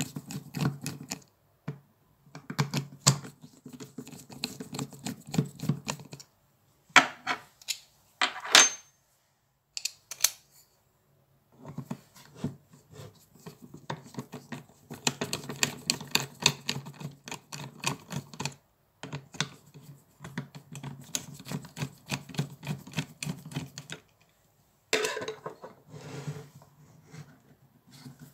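Screwdriver turning out the small screws of a Makita impact driver's plastic housing: runs of rapid small clicks and scraping, broken by short pauses. A couple of sharper single clicks come about a third of the way in, one with a brief ring.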